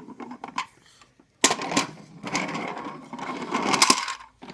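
Small plastic toy car rattling along a Little Tikes plastic raceway track. A few light clicks come first, then a dense clatter starts about a second and a half in and lasts nearly three seconds.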